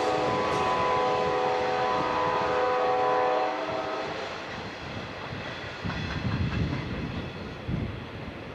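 Amtrak California Zephyr locomotive horn sounding one long chord from the head end of the train, cutting off about three and a half seconds in. Under it and after it, the train's rear material handling cars roll by with wheels rumbling and clacking on the rails, louder a couple of times near the end.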